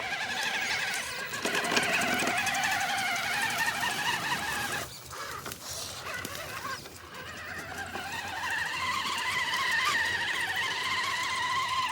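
RC rock crawler's electric motor and gearbox whining under throttle, the pitch wavering as it climbs. It eases off about five seconds in and picks up again a couple of seconds later.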